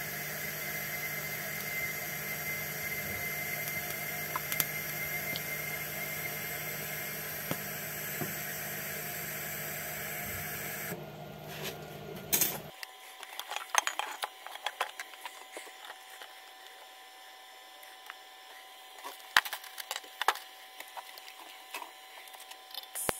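TIG welding arc on a stainless steel exhaust pipe: a steady buzz with a low hum. It cuts off about eleven seconds in, and it is followed by scattered clicks and knocks of metal parts being handled.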